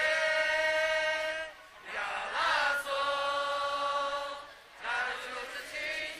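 A group of people singing a slow song together in unison, holding long drawn-out notes in three phrases, with a short pause for breath about one and a half seconds in and again near four and a half seconds.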